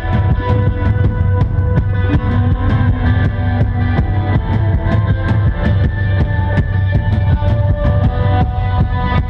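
Instrumental post-rock band playing live: electric guitars holding sustained, ringing notes over a steady, busy drum kit beat.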